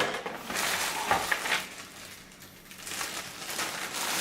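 Crinkling and rustling of plastic packaging as cables and wiring harnesses are handled, with a couple of light clicks early in and a quieter stretch midway.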